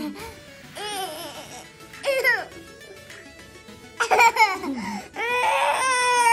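A toddler laughing and squealing in short high-pitched bursts, then a long held high wail near the end.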